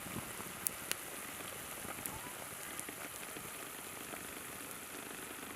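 Food frying in a pan: a steady high sizzle with a few sharp pops of spitting oil.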